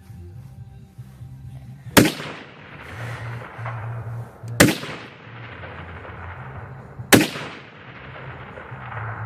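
Three rifle shots, about two and a half seconds apart, each followed by an echo that rolls away for a second or two.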